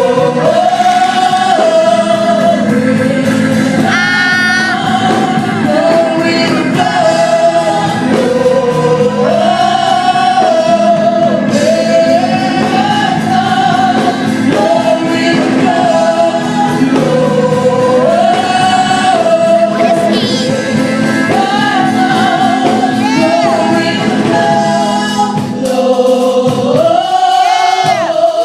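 Gospel praise team singing as a choir, the same sung phrase coming round again and again over steady sustained chords.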